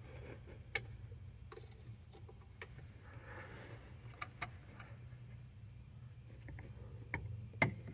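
Faint, scattered small clicks and light taps, about eight over several seconds with the sharpest one near the end, over a low steady hum: hands and parts being handled up under a truck's dashboard.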